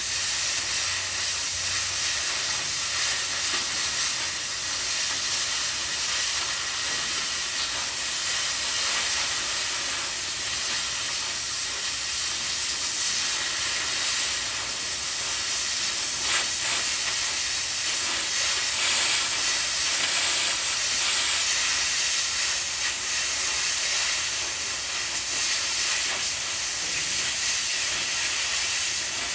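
Oxy-fuel cutting torch hissing steadily while cutting metal, a little louder for a few seconds past the middle.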